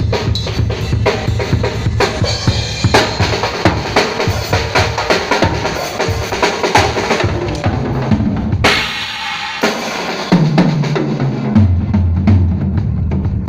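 Drum kit played in a quick groove, with bass drum, snare and rimshot strokes over low bass notes.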